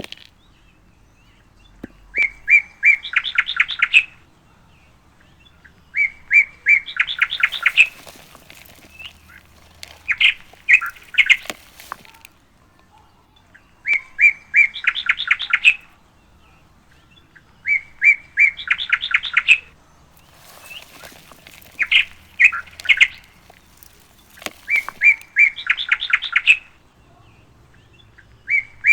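A songbird repeating the same short phrase about every four seconds: a few clear notes, then a fast trill.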